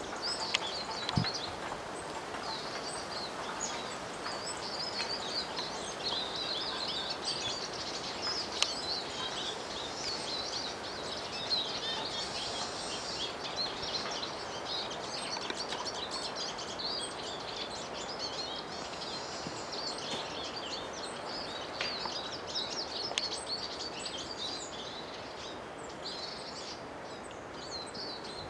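Many small birds chirping and twittering without a break, over a steady background noise, with a few sharp clicks.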